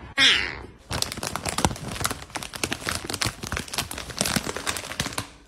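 A snack-chip bag crinkling as a hand rummages in it: a dense, irregular run of crackles. It is preceded by a brief loud falling sound right at the start.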